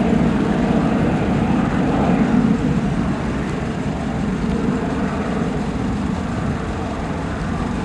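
Boeing 737-800's CFM56-7B jet engines at takeoff thrust: a steady, deep rumble that slowly fades as the airliner climbs away.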